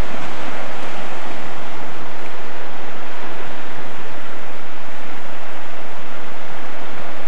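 Ocean surf breaking and washing against the rocks at the foot of sea cliffs: a loud, steady rush of water.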